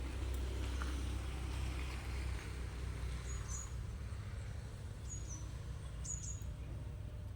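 A small bird chirping three times in short, high calls that step downward, over a steady low rumble.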